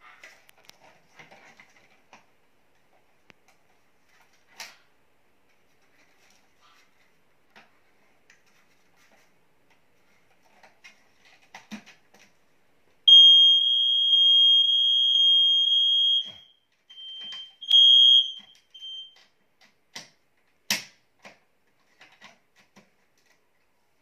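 Firex smoke alarm twisted onto its ceiling base, sounding a loud, high, steady alarm tone for about three seconds about halfway in, then a few shorter bursts. Plastic clicks and knocks from handling the unit come before and after, with a sharp knock near the end.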